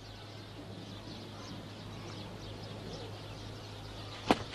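Quiet background with a low steady hum and faint high chirps, then a sharp click about four seconds in.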